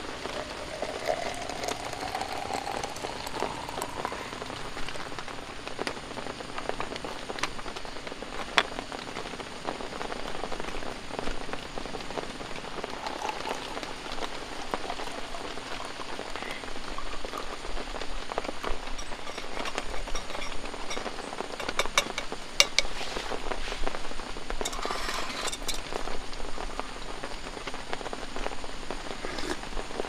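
Steady rain falling, with hot water poured into a glass French press in the first few seconds, its pitch rising as the press fills. Later coffee is poured into a metal mug, and there are a few sharp clicks.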